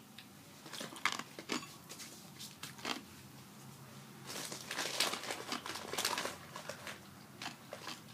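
Crinkling of a snack wrapper being handled, with scattered crunches and clicks. The crinkling is densest for about two seconds from around four seconds in.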